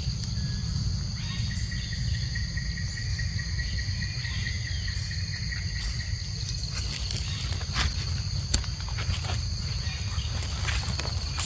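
Forest insects keep up a steady high-pitched chorus, with a thinner steady whine from about a second in to about seven seconds and a low rumble underneath. Scattered rustles and ticks start in the second half.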